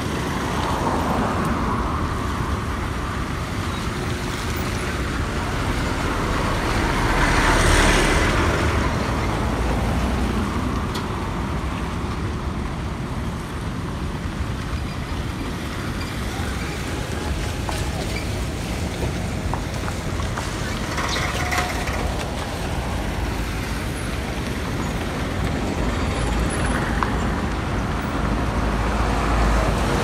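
Road traffic on a busy road: a steady rumble of engines and tyres, with a vehicle passing close about eight seconds in and another about twenty-one seconds in.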